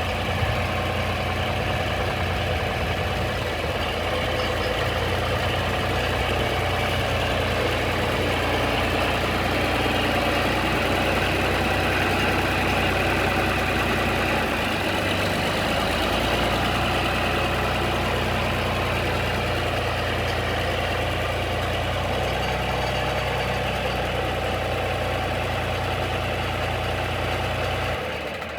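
John Deere 4020 Hi-Crop tractor running steadily at idle, with a brief dip in its low engine note about halfway through. Its Powershift transmission is one the owner calls bad.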